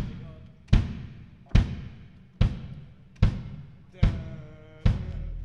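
Kick drum of a drum kit struck alone, seven evenly spaced hits about one every 0.8 seconds, each a deep thud with a sharp beater click, played one drum at a time for a sound check.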